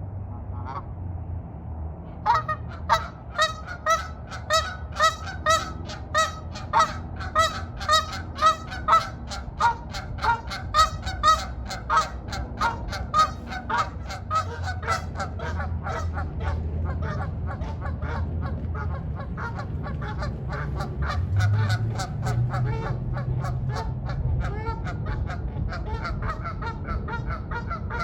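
Canada geese honking. About two seconds in, a steady run of loud honks begins, roughly three every two seconds; after the middle it gives way to a denser flock chorus of softer, overlapping honks.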